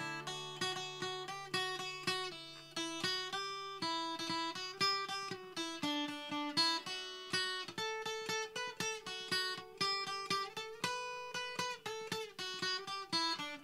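Acoustic guitar playing an instrumental break: a picked melody of separate plucked notes, several a second, over lower bass notes.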